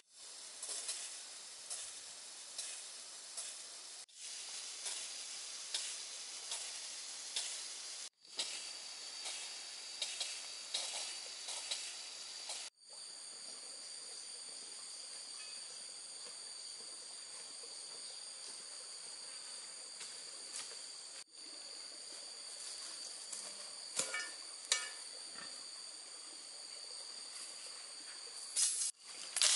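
Steady high-pitched insect chorus, broken a few times by abrupt cuts, with a few short knocks near the end.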